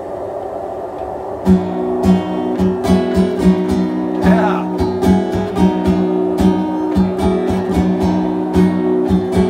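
Acoustic guitar strummed in steady, rhythmic chords, starting about a second and a half in as a song's introduction. Before it comes in there is only a steady background noise.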